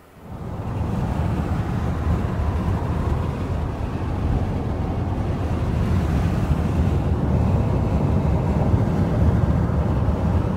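Steady road and engine noise heard from inside a moving car's cabin, a low even noise of tyres and engine that comes in suddenly just after the start.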